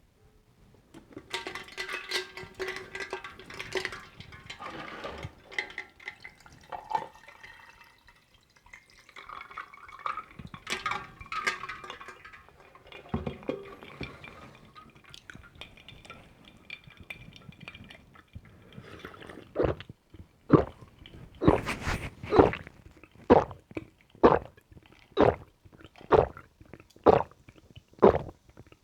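Ice water poured from a kettle, with liquid splashing and ice clinking. About two-thirds of the way through, a run of roughly ten loud gulps of swallowing begins, about one a second.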